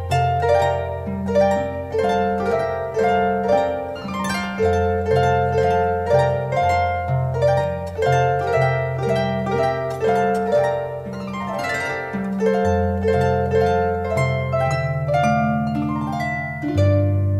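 Solo harp music: a quick run of plucked notes ringing and fading over long, low bass notes.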